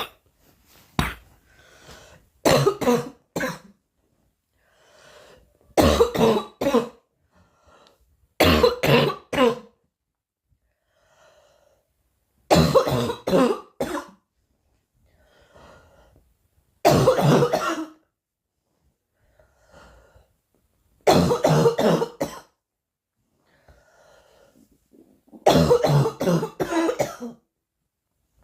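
A girl coughing in repeated fits of two to four coughs, a new fit about every four seconds, with quiet breaths between the fits.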